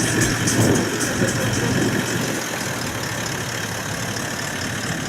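A 4x4's engine running at low revs, steady, a little quieter after about two seconds.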